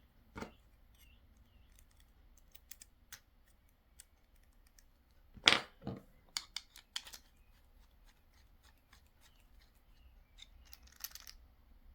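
Small clicks and taps of a screwdriver, screw and metal padlock parts being handled while a screw is worked into an aluminium padlock body. There is a louder knock about five and a half seconds in and a brief scratchy rustle near the end.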